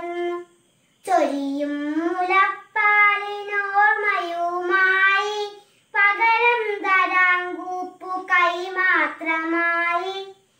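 A young girl singing unaccompanied: held, gliding melodic phrases with short pauses for breath between them.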